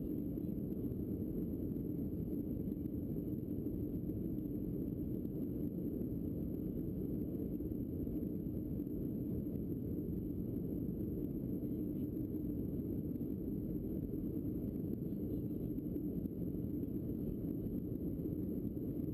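Steady low rumble inside the cabin of a Boeing 737 airliner climbing after take-off: engine and airflow noise, even and unchanging.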